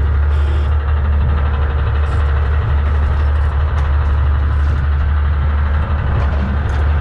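Boat engine running steadily at trolling speed, a constant low drone with wind and water noise over it.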